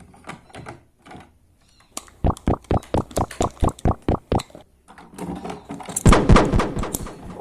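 A rapid, even run of about a dozen sharp clicks, roughly six a second, followed near the end by a longer, denser clatter.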